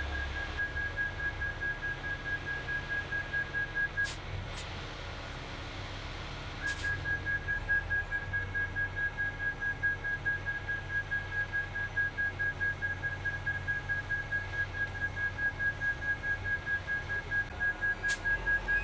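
Reversing alarm on a concrete mixer truck, a single high beep repeating rapidly, stopping for a couple of seconds about four seconds in, then starting again, over the low running of the truck's diesel engine. A few sharp knocks fall in the pauses and near the end.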